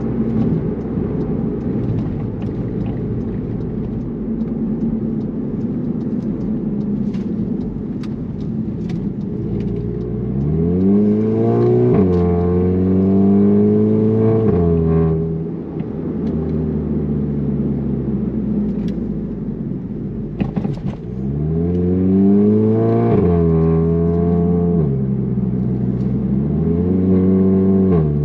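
Turbocharged four-cylinder engine of a VW Alltrack breathing through an aftermarket AWE Touring exhaust. It first cruises with a steady drone, then accelerates hard twice. Each time the note climbs, drops at an upshift, and climbs again before the driver eases off.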